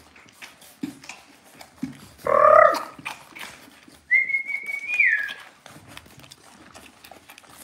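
A person whistles one high note to call Dalmatian puppies; the note is held for about a second, then drops. Shortly before it comes a short, loud call.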